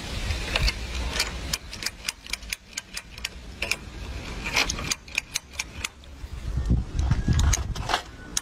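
A metal key clicking and rattling in a motorcycle ignition lock as it is pushed in and jiggled, with many quick, irregular metallic clicks.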